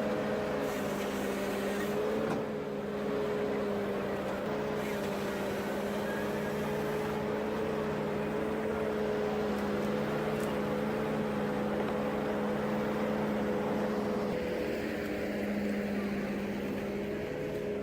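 A heavy machine's engine running at steady revs, a constant even hum with no changes in pitch.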